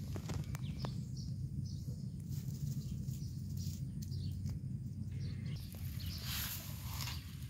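Outdoor rural ambience: scattered short bird chirps and small clicks over a steady low rumble.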